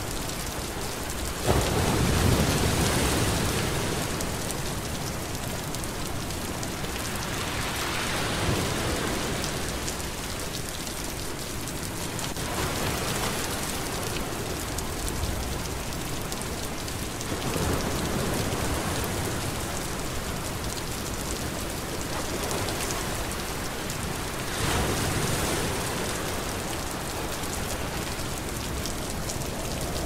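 Steady rain hissing onto the sea, with a deeper wash of waves swelling and fading every five seconds or so. The strongest surge starts suddenly about a second and a half in.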